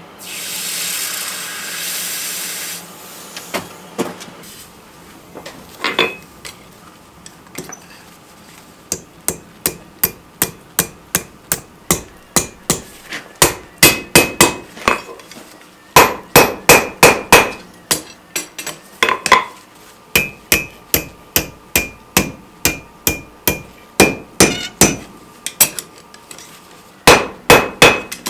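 Rounding hammer striking hot steel bar stock on an anvil: hand forging, in runs of quick blows about three a second with short pauses, each blow leaving a high anvil ring. A loud rushing hiss comes first and stops about three seconds in.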